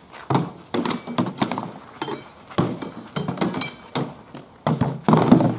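Swords striking round shields and shields knocking together in a rapid exchange of blows: a string of sharp knocks and dull thuds with a few metallic clinks, loudest in a dense flurry near the end.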